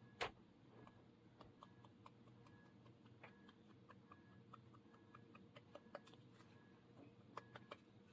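Near silence with scattered faint clicks and ticks, and one sharper click just after the start.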